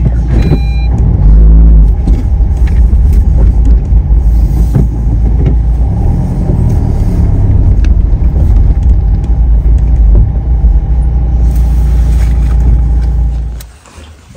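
Car driving slowly along a gravel lane, heard from inside the cabin: a loud, steady low rumble of engine and tyres that cuts off sharply near the end.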